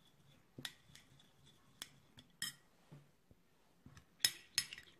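Metal spoon clicking and scraping against a small glass bowl while stirring a thick paste: a few scattered light clicks, then a quick run of ringing clinks near the end.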